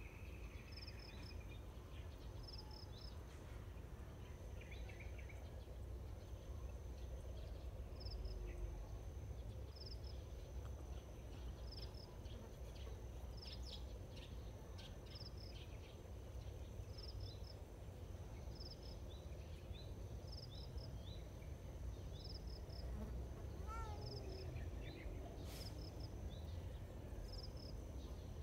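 Outdoor insect chirping in short double pulses about once a second, over a faint steady high hum and a low rumble. Faint clicks of cats chewing grass come now and then, and a short whistled call sounds once near the end.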